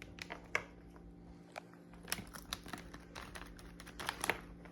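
Snack packaging being handled: crinkling with a scatter of sharp, irregular clicks, the loudest about half a second in, just after two seconds and near the end.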